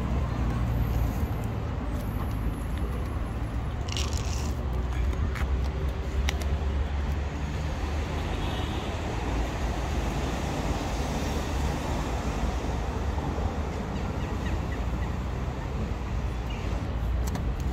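Steady low outdoor rumble of street background noise, with a few faint short clicks about four and six seconds in.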